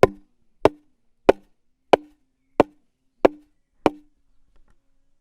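A mallet striking wood seven times at an even pace, about one and a half knocks a second, each knock with a short hollow ring.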